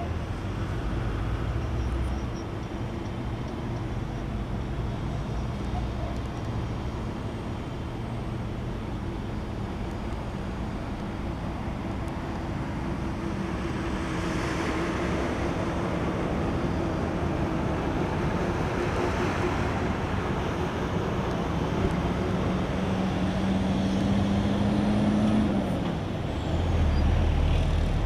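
Engine of an International-chassis fire-rescue ambulance running as it moves slowly along a gravel track, a steady hum with a broader rush of engine and tyre noise as it passes about halfway through. Late on, an engine note rises in pitch and stops shortly before the end.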